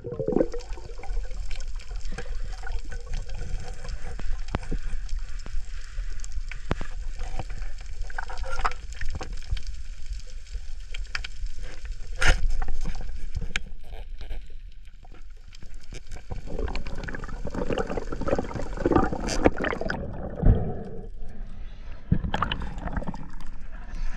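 Underwater sound of a reef as picked up by a diving camera: a steady rush and gurgle of water with many scattered sharp clicks and crackles, growing busier in the last several seconds.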